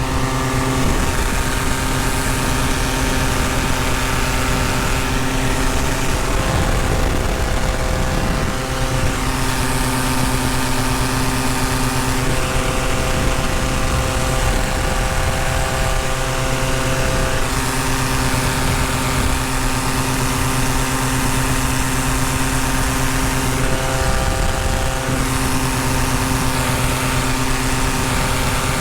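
Tandem paramotor engine and propeller running steadily in flight, with wind rushing past; the engine note shifts slightly a few times.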